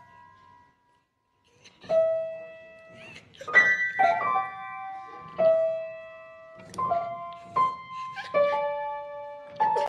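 Piano keys pressed by a small dog's paws: irregular, unmelodic single notes and clashing clusters, each ringing and fading, starting after nearly two seconds of silence.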